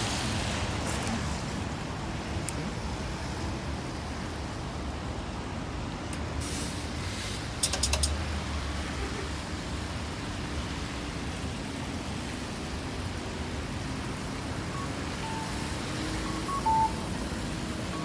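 City street traffic: a steady rush of passing vehicles. A short clatter sounds about eight seconds in, and a few short high beeps near the end.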